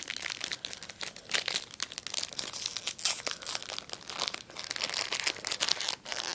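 Foil Yu-Gi-Oh booster pack wrapper crinkling in dense, irregular crackles as it is handled and torn open.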